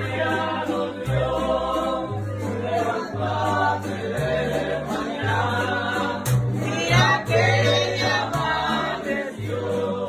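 Mariachi band singing together to guitar accompaniment, with deep bass notes changing about once a second under the voices.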